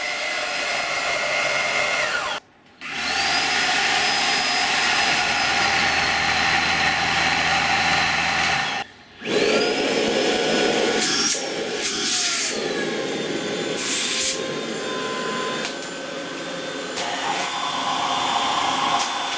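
Tineco Pure One X cordless stick vacuum running: a steady rush of air under a high motor whine, cut off twice briefly. The whine rises as the motor spins up after each break and later drops in pitch, and a few brief rattles come through about halfway in.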